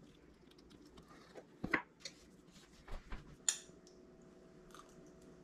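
Faint scattered clinks and taps of cutlery against dishes, a few light knocks, then one sharper metallic clink about three and a half seconds in that rings briefly.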